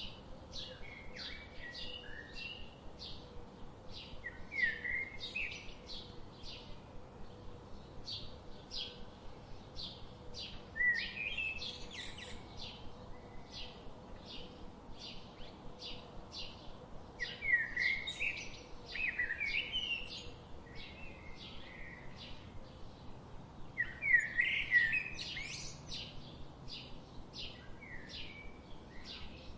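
Songbirds singing: a steady series of short high notes about twice a second, with louder warbling phrases breaking in four times.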